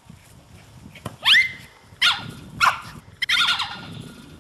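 Small dog giving short, high-pitched yaps, a few single ones and then a quick run of them, as it chases a ball.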